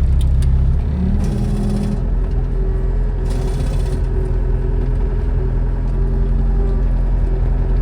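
Tractor engine running steadily, its note a little higher for about a second near the start.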